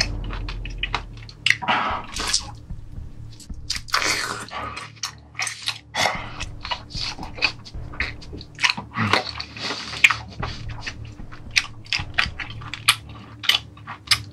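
Chewing and biting of a cooked octopus tentacle, with many irregular wet clicks and smacks from the mouth.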